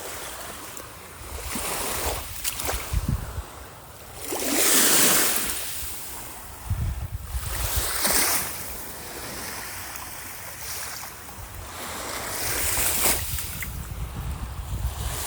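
Small waves washing in and breaking on a beach, swelling and falling back every few seconds, loudest about four to five seconds in. Wind rumbles on the microphone underneath.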